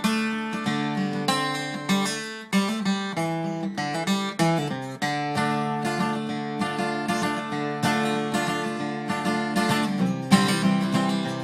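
Kazuo Yairi DY91CK acoustic guitar played in D minor: plucked notes and chords ringing into one another, with a few harder strums.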